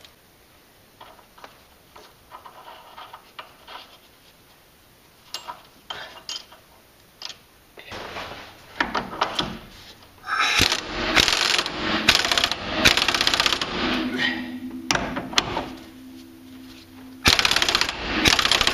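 Tool work on the steering gearbox and pitman arm. At first there are scattered light metal clicks. From about eight seconds in come louder stretches of rapid mechanical rattling, with a steady hum under part of it and a loud burst near the end.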